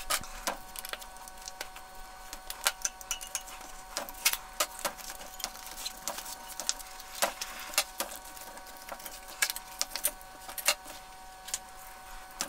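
Irregular light clicks and clatter of a bicycle wheel, tyre and tyre levers being handled as the tyre, inner tube and rim tape come off, over a faint steady hum.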